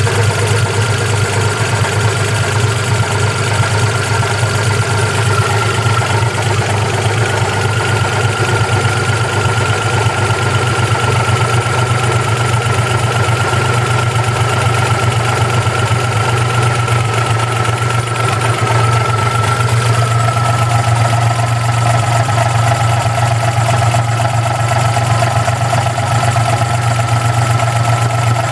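1992 Geo Metro LSi's 1.0-litre three-cylinder engine idling steadily, an idle the owner calls rough. The sound of the idle shifts a little about twenty seconds in.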